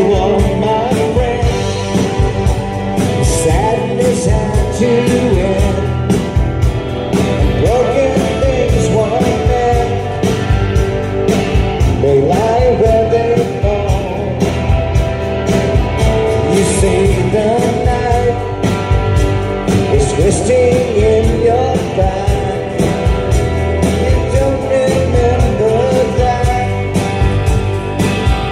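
Live rock band playing a song: electric guitars and a steady beat under a man's singing voice.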